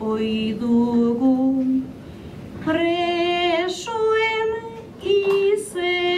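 A woman singing an improvised Basque bertso solo and unaccompanied into a microphone: one voice holding long notes in phrases, breaking off for a breath about two seconds in and again briefly near the end.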